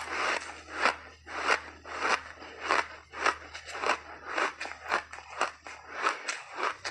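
Crunchy refrozen ice being chewed in big mouthfuls, with a crisp crunch about twice a second.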